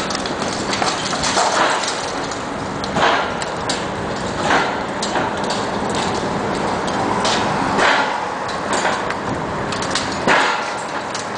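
Bricks and masonry crashing and clattering down in repeated bursts, every couple of seconds, as a John Deere 450 knocks them loose with a pole. A steady machine hum runs underneath.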